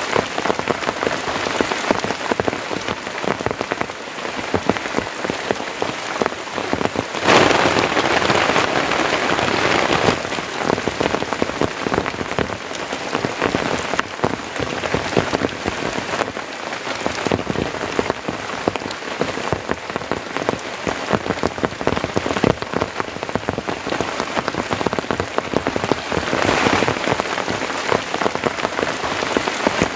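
Heavy rain falling, a dense patter of drops; it comes down harder for a few seconds about a quarter of the way in.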